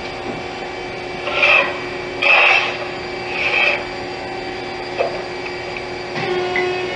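Powered-up Haas SL-40T CNC lathe giving a steady hum with a couple of steady tones. Over it come three short rasping scrapes about a second apart, and a single click about five seconds in.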